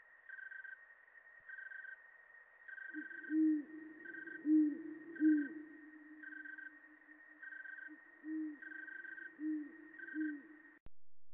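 An owl hooting: six low hoots in two groups of three, over a steady background of evenly spaced high chirps about once a second. All of it cuts off abruptly near the end.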